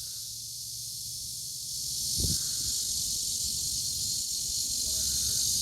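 A chorus of cicadas buzzing in a dense, steady high-pitched drone that swells louder about two seconds in. A brief low thump sounds just after the swell.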